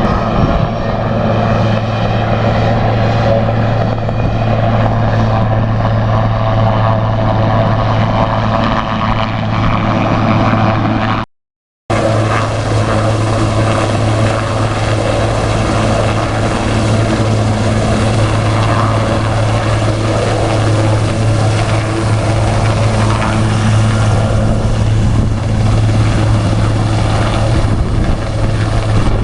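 Water-bombing helicopter running loud and close, its rotor and engine a steady, unbroken drone. The sound drops out completely for about half a second a little after eleven seconds in, then resumes unchanged.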